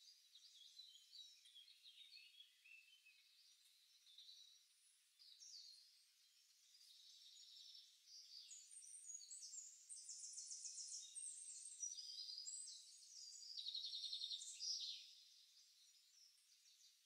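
Faint songbirds chirping and trilling, several calls overlapping, with quicker, louder trills in the second half.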